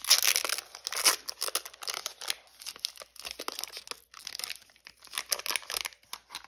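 Foil wrapper of a Pokémon trading-card booster pack being torn open by hand, loudest in the first second, then crinkling on and off as the foil is pulled back and the cards are worked out.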